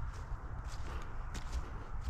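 Footsteps of a person walking outdoors, about three steps in two seconds, over a steady low rumble on the microphone.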